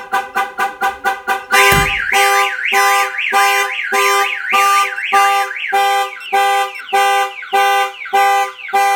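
Car alarm siren going off, set off by a door being opened while the alarm is armed: rapid beeping for about the first second and a half, a thump, then a fast rising-and-falling warble over pulsing steady beeps.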